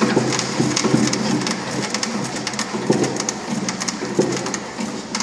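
Hand-operated lever water pump being worked fast: water gurgling and splashing through the pump and clear column, with irregular clicks and knocks from the mechanism.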